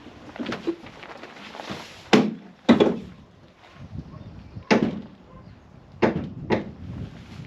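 Gear being shifted around a work van's cargo area: about five sharp knocks and clunks, spread over a few seconds, each with a short ringing tail.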